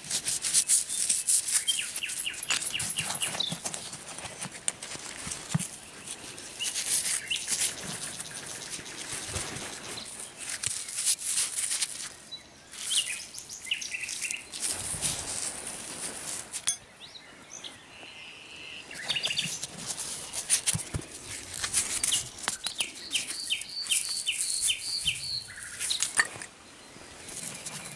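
Gloved hand scraping and rummaging through loose soil and a heap of corroded metal scrap, making rough rustling and scraping noises throughout. Over it a nightingale sings in short runs of quickly repeated high notes, several times.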